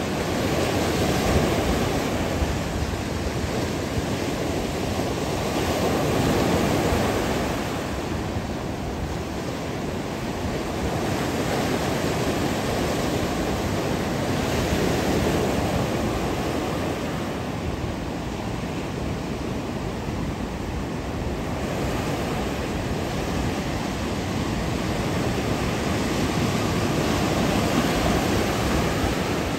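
Ocean surf breaking and washing up a beach: a steady rushing noise that swells and eases every several seconds.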